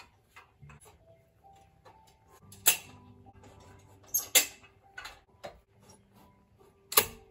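Chrome extension tubes of a Roberts carpet power stretcher being handled and fitted together: a few sharp metallic clacks, one at a time, the loudest near the end.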